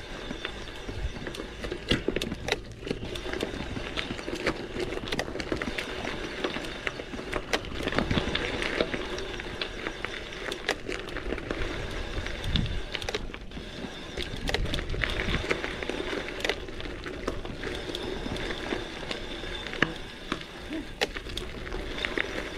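Gravel bike ridden over a rough trail: tyre noise on the ground and the bike rattling, with frequent sharp knocks and clicks over bumps.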